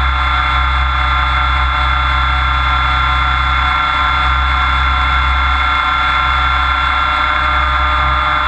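Onboard sound of a Mikado Logo 600 SX electric RC helicopter in steady flight: a continuous high whine from the motor and drivetrain over a steady low drone.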